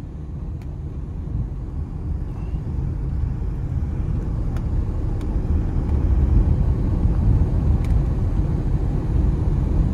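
Steady low rumble of a moving vehicle heard from on board, engine and road noise, growing slightly louder toward the end.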